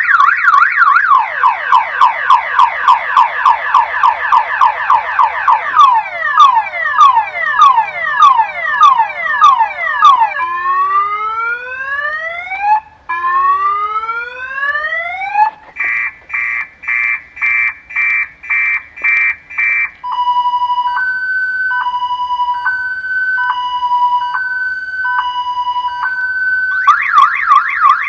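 Electronic car alarm siren cycling through its tone sequence. It goes from a fast warble to rapid falling sweeps, then slower falling whoops, then two long rising whoops. These are followed by a run of beeps about two a second, and a two-note high-low alternation, before the warble comes back near the end.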